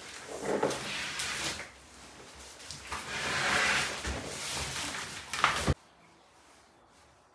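A large cardboard drum-kit box being tipped over and shifted on a rubber floor mat: cardboard scraping and rustling in two stretches, with a few sharp knocks near the end before the sound drops off suddenly.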